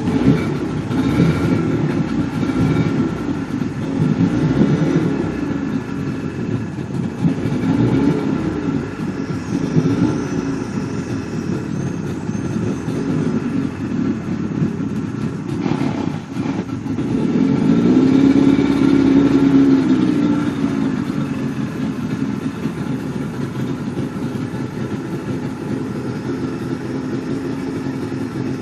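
Motorboat engine running just after starting, revved up and down in short swells several times. A longer, louder rev comes about two-thirds of the way through, and then it settles into steady running.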